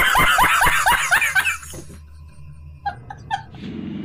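A man laughing hard in a quick run of rhythmic ha-ha bursts that breaks off after about a second and a half. A few short high sounds come about three seconds in.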